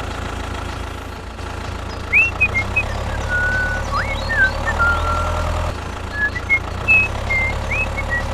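Steady low tractor engine rumble, with a buzzier rise for about a second near the middle. Short high chirps and whistles, several sliding up in pitch, come and go over it from about two seconds in.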